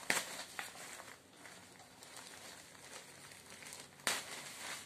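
A folded saree rustling and crinkling as it is pulled open and unfolded by hand, with two sharper crinkles, one right at the start and one about four seconds in.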